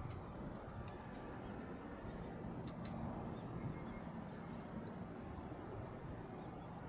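Steady low outdoor rumble of wind across an open tidal flat, with faint, short high chirps of distant birds scattered throughout and two faint clicks about three seconds in.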